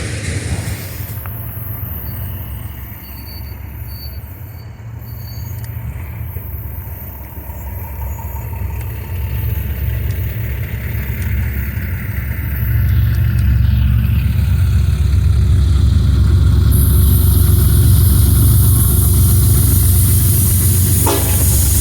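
Diesel locomotive engines, a deep steady rumble that grows louder about two-thirds of the way through as the locomotives draw closer.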